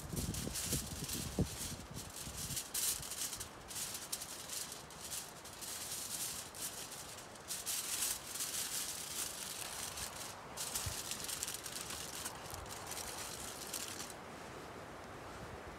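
Aluminium foil crinkling in repeated stretches as it is handled and folded around a potato by hand. The crinkling stops about fourteen seconds in.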